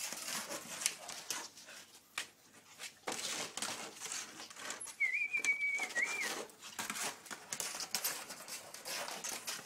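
Young puppies whining, with one thin high-pitched whine lasting about a second a little past halfway, over close rustling and scuffling noises.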